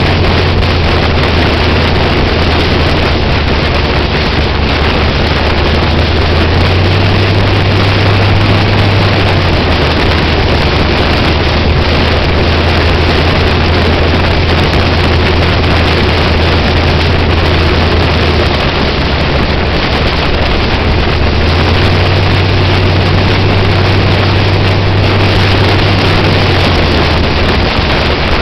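Fuel-injected V8 of a street-legal sprint car running on the road at a steady cruise, its low engine note stepping up and down slightly a few times with the throttle. Heavy wind noise buffets the roll-cage-mounted camera.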